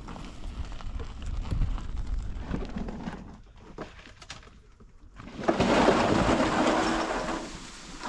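A steel wheelbarrow loaded with rough stones rattling as it is pushed over stony ground. About five seconds in, a loud rumbling clatter lasting about two seconds as the wheelbarrow is tipped and the stones slide and tumble out.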